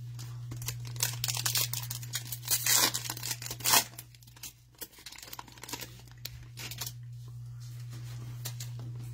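Foil trading-card pack being torn open and crinkled by gloved hands: a run of crackling rips over the first four seconds, loudest around three to four seconds in, then fading to quiet handling. A steady low hum runs underneath.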